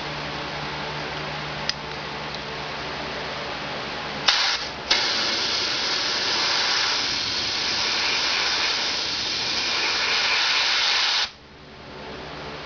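Handheld compressed-air blow gun on a 100 psi air line: a short burst just after four seconds in, then a steady hiss of air held for about six seconds that cuts off suddenly.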